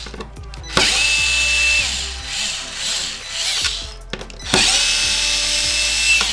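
Electric screwdriver with a Torx bit backing screws out of an Xbox One X casing: two runs, each spinning up and then holding a steady whine for a second or two.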